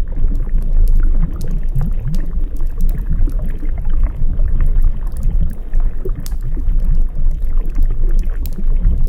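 Water sloshing and gurgling in a steady, churning wash, with many sharp crackles of a wood fire scattered through it.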